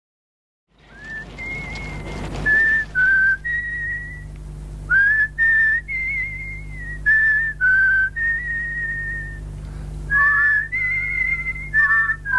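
A whistled tune: a melody of held notes, some gliding into the next, joined by a second whistled line in harmony about ten seconds in, over a steady low hum.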